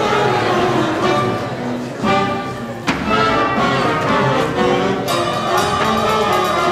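Orchestral music for a stage musical, strings and brass playing, with one sharp percussive hit about three seconds in.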